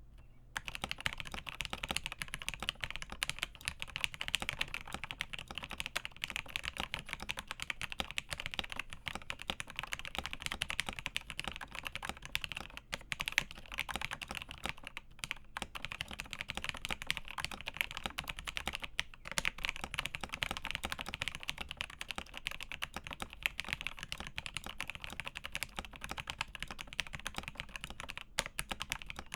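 Typing test on an LCK75 75% mechanical keyboard with Marshmallow switches, Infinikey PBT Islander keycaps and an acrylic case: a steady run of fast, irregular keystroke clicks.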